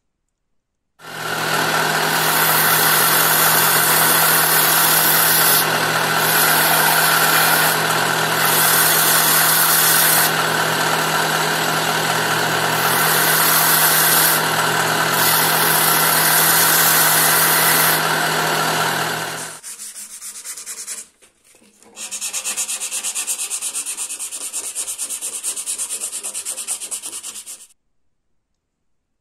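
Belt grinder running while a hardened stainless steel knife blade is pressed flat against the belt, grinding the heat-treat discolouration off its flats; the grinding hiss over the motor hum swells and drops as the blade is pressed on and lifted. After a brief pause near the end, a second, quieter stretch of grinding follows.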